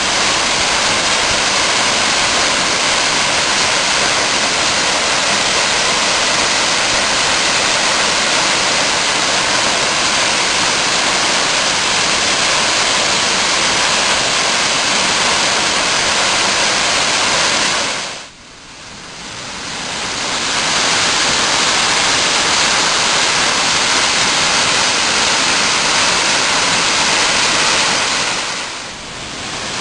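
A mountain waterfall pouring, heard as a loud, steady rush of water. It cuts out abruptly about two-thirds of the way through, builds back up over a couple of seconds, then dips briefly again near the end.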